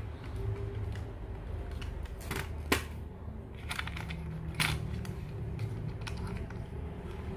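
Clicks and knocks from an Inbex tripod's pan head as it is handled and adjusted, a few sharp ones, the loudest a little under three seconds in.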